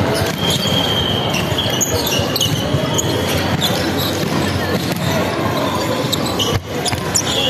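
A basketball game on court: the ball being dribbled and striking the floor again and again, with short high squeaks, over a steady background din of voices.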